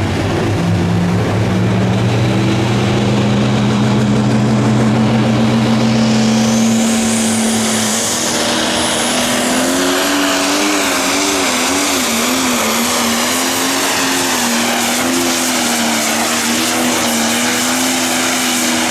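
Light pro stock pulling tractor, a Case IH 8920 with a turbocharged diesel, running at full throttle as it drags the weight-transfer sled down the track. The engine revs up within the first second and holds a steady pitch, then about seven seconds in the pitch drops and wavers up and down as it works under the growing load, with a high turbo whistle rising over it.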